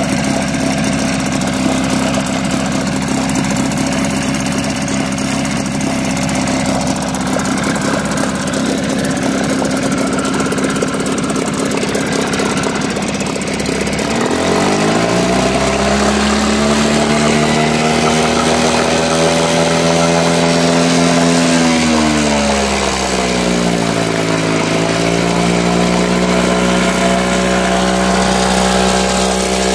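Mercury 4.5 hp two-stroke outboard motor running in a test barrel of water on rich-mixed fuel. It runs steadily for the first half, then rises in speed, holds, and drops back about two-thirds of the way in before settling to a steady run.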